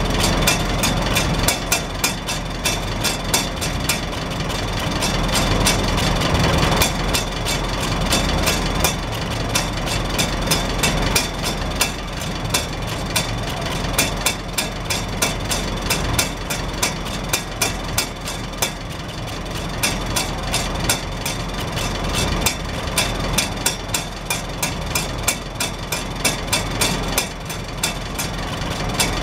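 Farmall Super H's four-cylinder engine idling steadily, heard at the exhaust stack as a fast, even train of exhaust pulses. The hinged rain-cap flap on the stack bobs and flutters in the exhaust flow.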